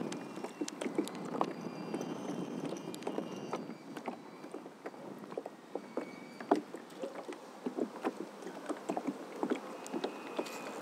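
Water sloshing and lapping around a fishing kayak, with many scattered light knocks and clicks.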